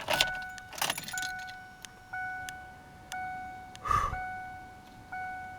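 Car keys jangling with clicks, over the 2006 Kia Spectra's warning chime dinging about once a second as a steady two-note tone. A short louder noise comes about four seconds in.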